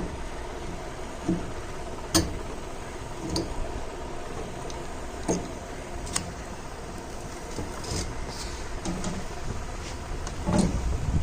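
Scattered clicks and knocks of hands and tools working on a refrigerator as its freezer compartment is taken out, over a steady low hum.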